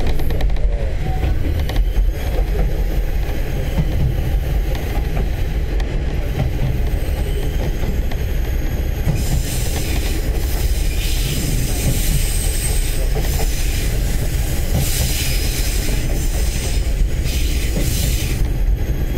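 KiHa 30 and KiHa 37 diesel railcars running along the track, heard from inside the car: a steady low rumble of engine and wheels on rail. A high wheel squeal joins about halfway through and drops away near the end.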